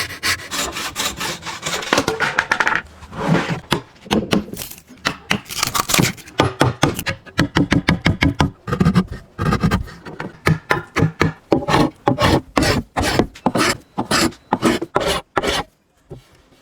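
Hand tools working wood for a pipa body, a rasp or sandpaper scraping in quick repeated strokes, several a second.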